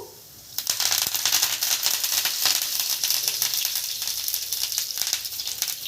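Fresh curry leaves hitting hot oil in a pan of mustard and cumin seeds (a vaghar tempering). A sudden loud sizzle starts about half a second in and keeps going, dense with sharp crackling pops.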